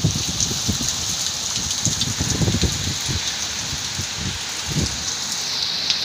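Heavy tropical rain pouring down with a steady hiss, while strong wind gusts rumble irregularly across the microphone.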